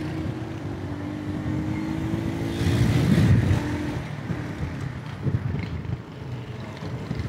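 Motorcycle engine running steadily with road and traffic noise, heard from the pillion seat of the moving bike; the rumble swells louder about three seconds in.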